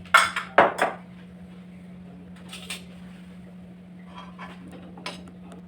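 A metal spoon clinking against the pan and the ghee container while desi ghee is spooned into the pan. Two sharp clinks come in the first second, then a few fainter taps, over a steady low hum.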